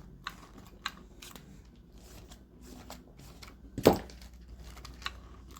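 Light clicks and taps of a plastic RC rally car being handled, with one louder knock about four seconds in.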